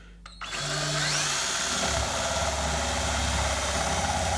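Power drill starting about half a second in, its whine rising as the motor spins up, then running steadily as it bores a hole through a hard plastic dog bone.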